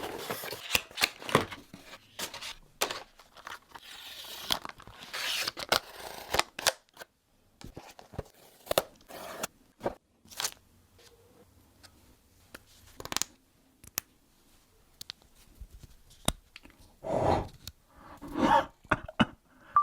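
Hand tool cutting and scraping material in many short strokes with sharp clicks, and two longer, louder scrapes near the end.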